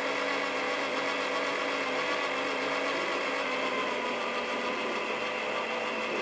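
Electric drill motor running steadily at constant speed, spinning a test pin in its chuck with a continuous even hum and whine. The pin is pressed sideways from behind to check the chuck's runout.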